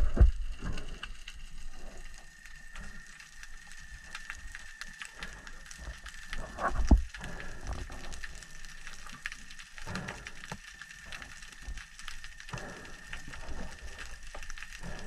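Underwater ambience over a rocky seabed: a constant crackle of fine clicks with a faint steady high tone. A dull thump comes about seven seconds in, with softer ones near ten and twelve seconds.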